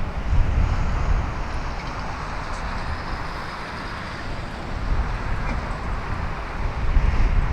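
Jet engines of a landing freighter airliner, a steady broad rush with a faint high whine, over strong gusts of wind rumbling on the microphone, loudest about half a second in and again near the end.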